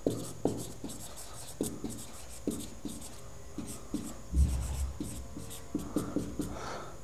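Marker writing on a whiteboard: short, irregular strokes and taps as the letters go down. A low thump comes about four and a half seconds in.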